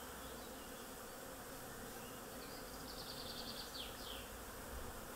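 Steady hum of many honey bees on an opened hive and a brood frame held up out of it.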